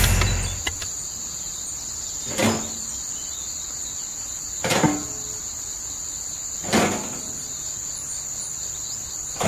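A low motor hum cuts off right at the start, leaving a steady high chirring of insects. Four short knocks come through it, about two seconds apart.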